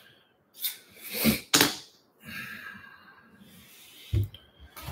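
Plastic shrink wrap on a cardboard trading-card box being cut and torn open with a small blade. Three sharp crinkling rips come first, then a softer scraping of the wrap for about two seconds, and a thump near the end.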